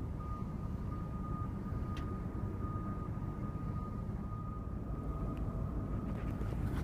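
Distant rumble of port machinery and jet aircraft across the water, steady and low, with a faint steady high-pitched whine running through it.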